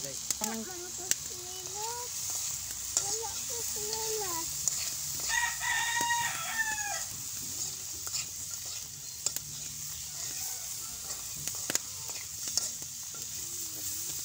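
Sago grubs (palm weevil larvae) sizzling as they fry in an oiled wok, with a metal spoon scraping and clicking against the pan as they are stirred. Chickens call in the first few seconds, and a rooster crows once about five seconds in.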